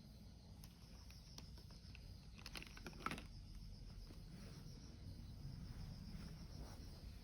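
Faint steady insect chirring, a high thin buzz with a fine pulsing texture, with a few light clicks a little before the middle.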